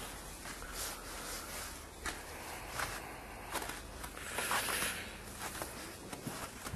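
Footsteps crunching through deep fresh snow, a steady walking pace of a crunch roughly every three-quarters of a second.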